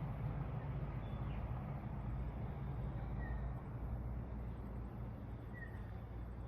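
Outdoor ambience: a steady low rumble with three short, faint bird chirps spread through it.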